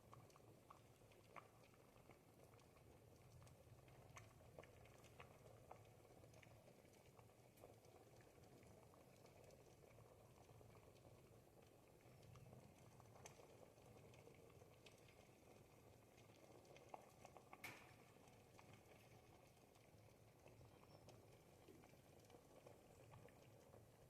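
Ribollita soup simmering in a pot: faint, steady bubbling with scattered small pops, one louder cluster of pops about two-thirds of the way through.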